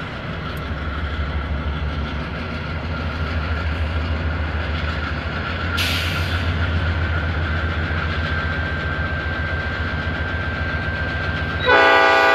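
CN train #403's diesel locomotives passing with a steady low engine rumble that grows slowly louder, and a short hiss about halfway through. Near the end the locomotive's air horn sounds loudly.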